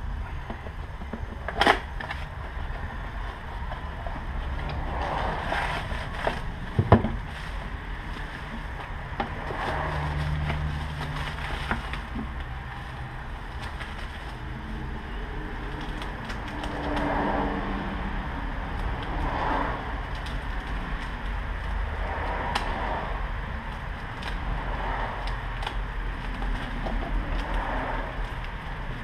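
Packaging being handled as parts are unboxed: a bubble-wrap bag and plastic bags rustling and crinkling against cardboard, in repeated soft bouts, with two sharp clicks near the start. A low steady rumble runs underneath.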